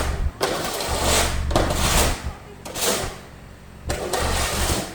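Car engine running with a steady low hum, broken by four bursts of rushing, scraping noise each half a second to a second long.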